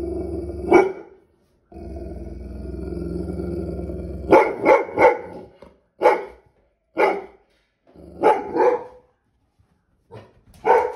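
Labrador retriever growling and barking in excitement at a cat: a low growl and a bark, a longer growl, then a string of about eight sharp barks, some in quick pairs.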